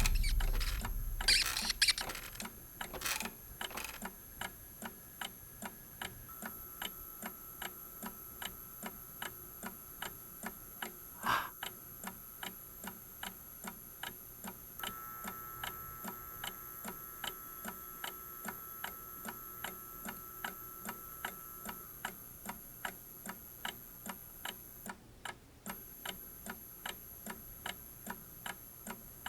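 A clock ticking with steady, evenly spaced ticks, after a low boom dies away at the start; a brief, louder sound cuts in once about eleven seconds in.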